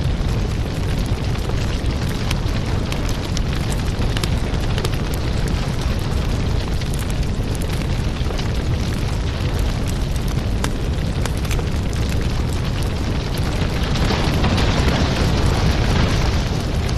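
Firewood burning in an open fire: a steady low rush of flame with frequent sharp crackles and pops of the burning wood. The hissing grows louder about fourteen seconds in, then eases near the end.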